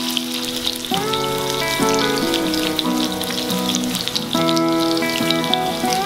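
Salmon steaks shallow-frying in hot oil in a pan: a steady crackling sizzle with small spitting pops, over background music.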